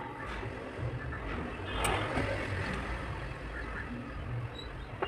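Background road traffic: a low steady rumble with a vehicle going past, swelling about two seconds in and fading again.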